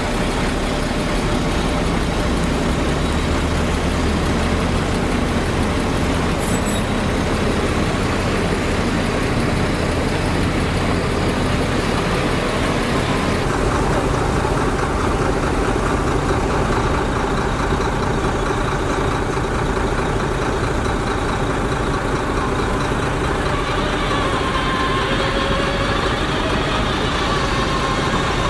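Heavy diesel earthmoving machinery running steadily: a bulldozer and dump trucks at work. About halfway through, the higher part of the sound drops away abruptly. Near the end a faint wavering whine rides over the engine.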